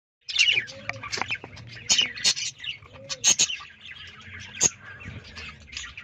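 Budgerigars chirping and chattering in quick, sharp notes and clicks that come in irregular runs.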